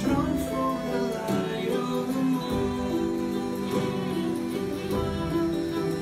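Music playing: instruments with held notes and a singing voice over them.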